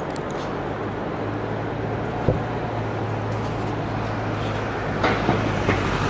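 Outdoor city noise with a motor vehicle's engine running nearby as a low steady drone that comes in about a second in, and a single sharp knock a little over two seconds in.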